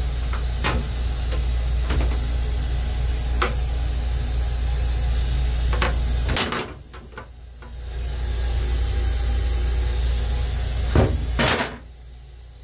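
Plastic toilet seat and lid in a stainless steel train restroom being handled, tapping and clicking a few times, with two louder knocks near the end as the lid is lowered shut. Under it runs the steady low hum and hiss of the railcar, which falls away briefly twice.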